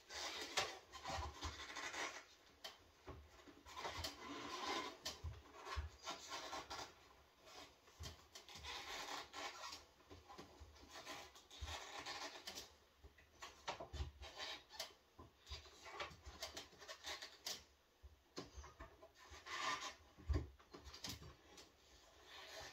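Irregular scraping and rubbing strokes from hand-working a small piece at a clamped shelf edge, with soft low knocks now and then.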